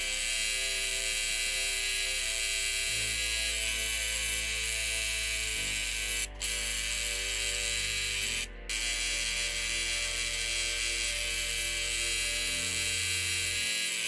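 Rotary tattoo machine running steadily as its needle works into the skin, a constant buzzing hum with two brief breaks, about six and eight and a half seconds in.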